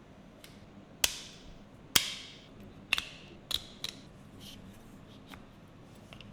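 Sharp clicks and snaps of small hard plastic parts being handled, most likely the camera and its accessories: about five loud clicks over three seconds, each with a short ringing tail, then a few fainter ticks.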